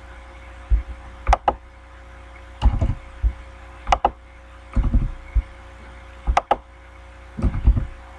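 Computer keyboard keys and mouse clicks as numbers are typed into spreadsheet cells: sharp taps in small groups every second or so, some with a dull thump, over a steady faint hum.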